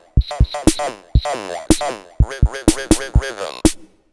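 Roland MC-101 groovebox playing finger-triggered vintage drum machine samples, with kick and hi-hat style hits at an uneven pace. Over them run robotic Texas Instruments Speak & Spell voice samples that stop shortly before the end, leaving only the drum hits.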